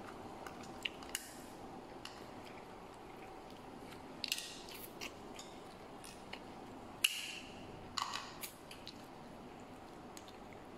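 Steamed shrimp being peeled by hand: scattered small crackles and wet clicks of shell coming away, in clusters about four seconds in and again around seven to eight seconds in, the sharpest about seven seconds in.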